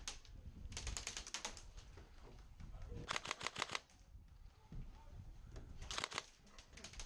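Airsoft electric rifles firing on full auto: three short bursts of rapid clicking shots, about ten a second, each lasting around a second.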